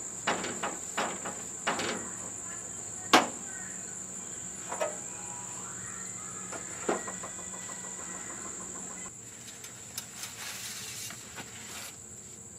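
Insects chirring in a steady high drone, while the hood of a step van is unlatched and raised: a few clicks and knocks, with a sharp clank about three seconds in.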